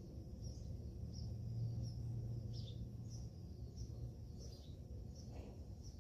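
A small bird chirping over and over, short high chirps about one or two a second, some sliding down in pitch, over a low steady hum.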